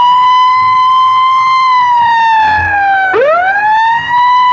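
Siren sound effect in a DJ remix: a loud wailing tone that sweeps up quickly, holds, sags a little, then sweeps up again about three seconds in.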